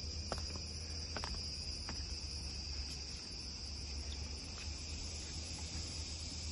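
Steady high-pitched drone of a forest insect chorus, with a low rumble underneath and a few faint clicks in the first two seconds.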